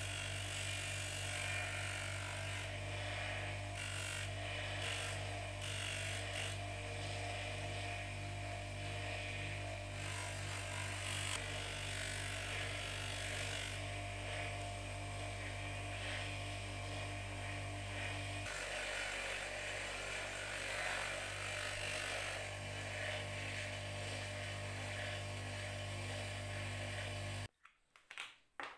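Bench grinder with a buffing wheel running with a steady motor hum, the steel pipe wrench parts pressed against the spinning wheel so a hiss of metal on the wheel swells and fades. The sound cuts off abruptly near the end.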